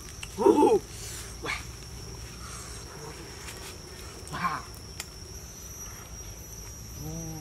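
A few short animal calls, the loudest about half a second in and a wavering one near the end, over a steady high-pitched insect drone from the forest.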